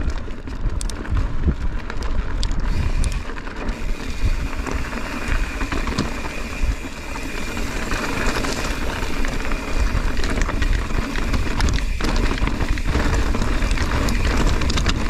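Mountain bike riding over a rocky trail: tyres on loose stone with a steady run of small clicks and knocks from the bike rattling, over a constant low rumble of wind on the microphone.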